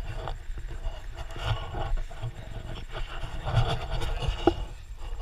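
Mountain bike rolling along a dirt trail: tyres scraping over dirt and small stones, with scattered clicks and rattles from the bike, under a steady low rumble.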